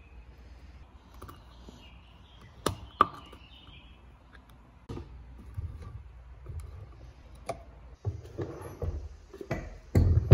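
Hand tools working at stuck, rusted screws in an old wooden jack's metal plates. There are sharp metal clicks and knocks, two loud ones about three seconds in. Then come the scraping, twisting grips of water-pump pliers, with heavier knocks near the end.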